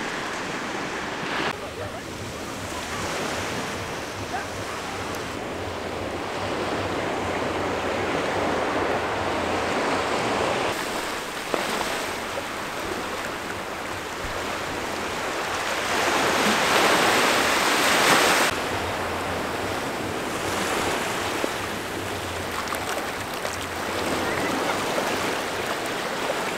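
Sea surf washing onto a sandy beach, swelling and falling, loudest about two-thirds of the way through and then dropping off suddenly.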